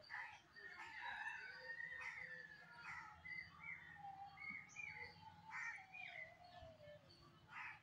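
Faint bird calls: many short chirps, with a longer call that falls in pitch about five to seven seconds in.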